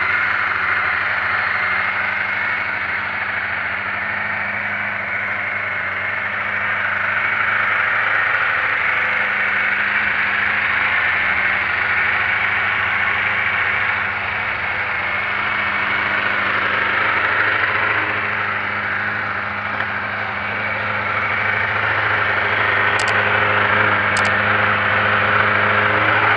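Honda CBR600 inline-four motorcycle engine, mounted in a go-kart, idling steadily with slight rises and falls in level. Two short clicks sound near the end.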